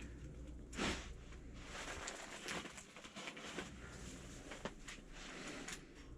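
Faint, scattered crackles and pops of firewood burning in a tent's wood stove, the loudest about a second in.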